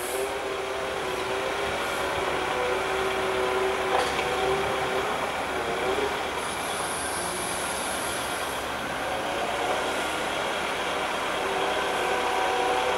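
Rail-going excavator travelling slowly along the track: its engine running with a steady whine that drifts slightly in pitch.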